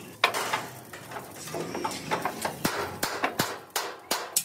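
Irregular hammer strikes and knocks on metal. A few scattered blows come early, and several sharp strikes follow about a third of a second apart in the second half.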